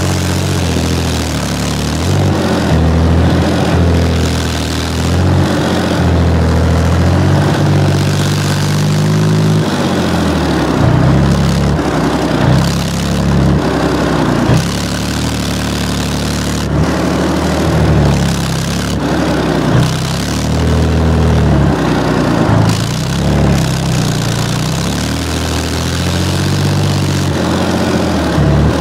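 Infantry fighting vehicle's engine running under load as it drives over rough ground, heard close up from on its deck; the engine note rises and falls repeatedly with the throttle, over a steady rushing noise.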